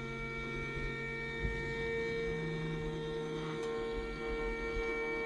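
MakerBot Replicator 2X 3D printer running through its start-up routine, its motors and cooling fans giving a steady hum with a whine of several held tones.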